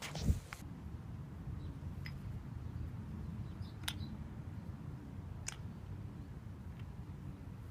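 Wooden kendama knocking: one sharp clack of the wenge-wood ball on the ken just after the start, then a few faint, thin clicks spaced a second or two apart, over a low steady background rumble.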